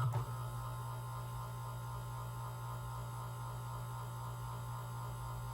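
Steady low electrical mains hum from the energized two-speed AC motor circuit. A brief click comes right at the start, after which the hum drops slightly and its higher overtones fade.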